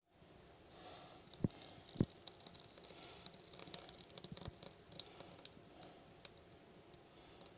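Thick egg and cream batter poured from a glass bowl onto diced bacon in a pan: faint wet pattering and small clicks, with two sharp knocks about a second and a half and two seconds in.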